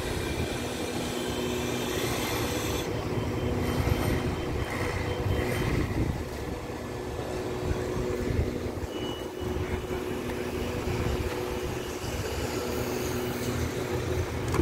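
Steady diesel hum of a passenger train's engines, with a low rumble and a few constant droning tones.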